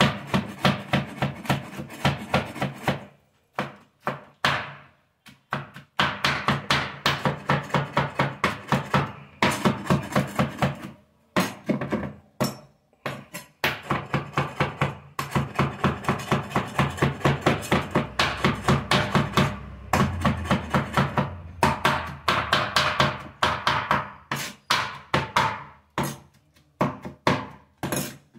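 Chef's knife chopping roasted tomatoes, green chillies and garlic on a wooden board: fast runs of knocks, about five a second, broken by a few short pauses.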